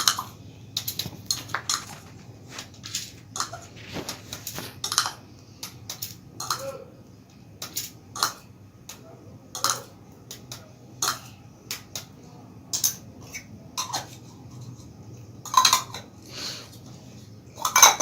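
A small spoon repeatedly clinking against a little pot, with sharp taps and scrapes roughly once a second, as spoonfuls of water are measured in.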